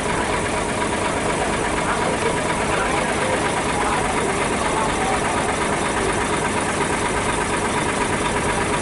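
Truck engines idling in a steady, unbroken drone.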